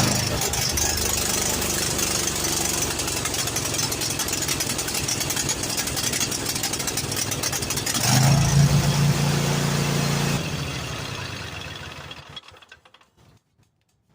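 Kohler 7000 series 22 hp V-twin engine on a lawn tractor running steadily just after starting, briefly run to check a new fuel filter for leaks. About eight seconds in it turns louder and deeper, then it is shut off and winds down to a stop.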